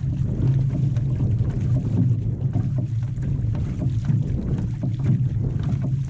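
Outrigger canoe under paddle: water rushing and splashing along the hull, with paddle blades catching the water and wind rumbling on the microphone.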